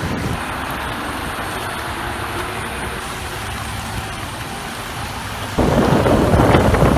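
Wind buffeting the microphone over a rumble of street traffic. The rumble turns suddenly louder about five and a half seconds in.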